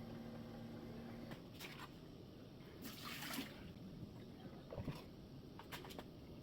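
Keurig K-Slim coffee maker running a brew cycle with fresh rinse water after descaling: a faint trickle of water into the mug. There is a steady hum for the first second or so, a short hiss about three seconds in and a few light clicks near the end.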